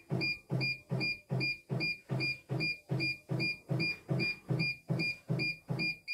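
CNY E900 embroidery machine beeping in a fast regular series, about three a second, each beep paired with a short buzz of the embroidery unit's motor stepping the hoop, as the hoop is jogged to the top of the design area from the touchscreen. The series stops abruptly at the end.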